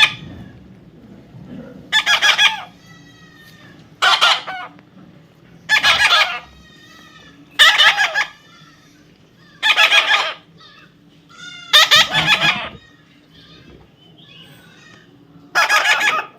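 Young parrot giving seven loud, harsh squawks, roughly one every two seconds, with softer chirps in between.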